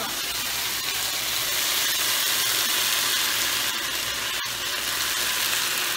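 Thin strips of marinated churrasco steak sizzling in hot oil in a frying pan, stir-fried over high heat until browned all over. A steady, even sizzle.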